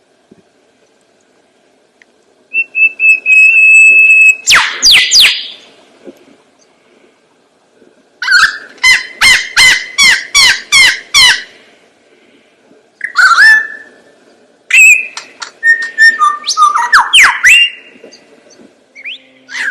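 A bird calling loudly in separate phrases of varied whistles: a held whistle, quick sweeping notes, and a run of about ten sharp repeated notes at roughly three a second.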